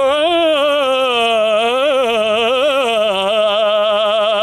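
A man singing a copla unaccompanied, holding one long note that bends through ornaments and then settles into a steady, wide vibrato.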